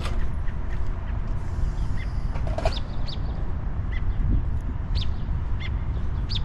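Small birds chirping, short high calls scattered through, over a steady low rumble.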